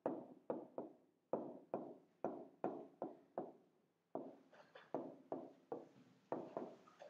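A pen tapping and knocking against the glass of an interactive touchscreen whiteboard while writing: a quick, uneven string of light taps, two to four a second, with a short pause about halfway through.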